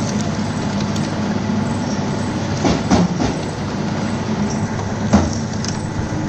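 Fly ash brick plant machinery running, with the belt conveyor carrying the fly ash mix: a steady mechanical hum and rumble, with a few brief louder sounds about three seconds in and again about five seconds in.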